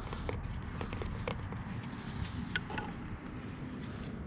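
A few light clicks and taps from handling and fitting a plastic solar flood light, over a low steady rumble.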